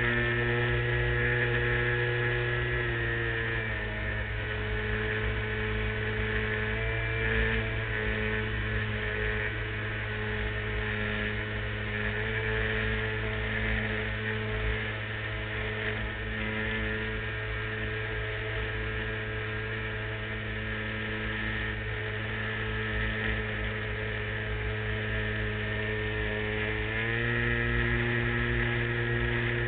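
LazyBee RC model airplane's motor and propeller running steadily in flight, a droning hum with wind rushing past the wing-mounted camera. The pitch steps down a little about three seconds in and climbs back up near the end.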